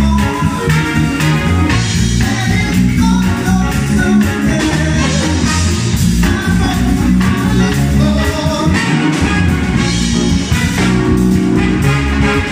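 A live band playing a song: drums, electric bass and keyboard, with a woman singing lead.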